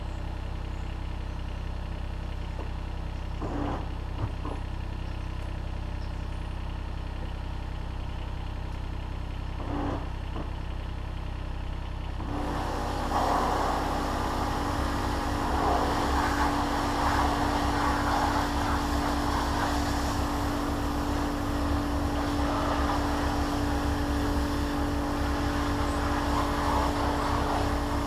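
A machine running steadily. About twelve seconds in, a louder hiss of spray joins it while the pitch of the machine stays the same, as a Nilfisk steam cleaner's jet opens up.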